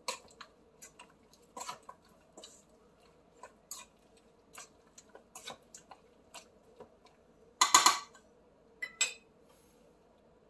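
Hand mixing raw cubed beef with wet seasoning in a stainless steel bowl: scattered soft clicks and taps of meat and fingers against the steel, with a louder scraping rush a little before 8 seconds in.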